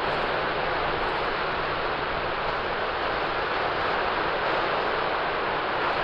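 Surf breaking and washing in over a shallow sandy beach, a steady, even rush of water.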